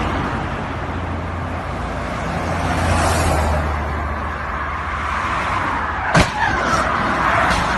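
Highway traffic going by at speed: a steady rush of tyre and wind noise with a low engine hum as a truck and cars pass. About six seconds in there is a sharp bang, followed by a wavering high squeal.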